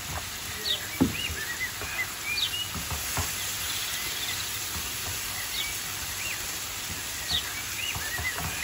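Sliced onions and tomatoes sizzling in a frying pan while a wooden spatula stirs them, with a few scrapes and knocks against the pan, the loudest about a second in. Short high chirps repeat every second or two.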